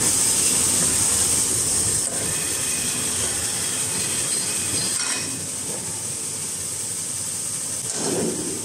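CIL-SP-300 manual maxi-roll toilet tissue cutting machine running, its motor and cutting blade making a steady mechanical whir with a high hiss while a tissue roll is fed toward the blade.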